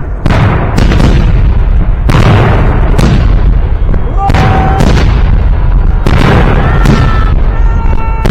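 Victory Day fireworks salute: shells bursting in a rapid, very loud series of booms, about one or two a second, each trailing off in a long rumble.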